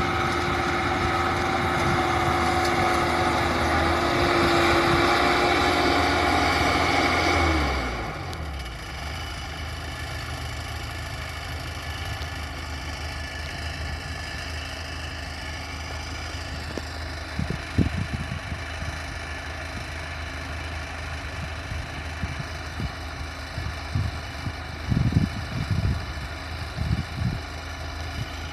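Rice combine harvester engine running at high revs, then slowing about eight seconds in and settling to a lower, quieter steady run, with a few short knocks later on.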